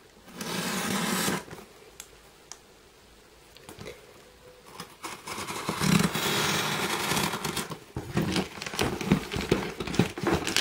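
A plastic-wrapped postal parcel being torn open by hand, its wrapping and paper label ripping and crinkling. There is a long tearing rip near the start, then quieter scratching, then more ripping and irregular crinkling toward the end.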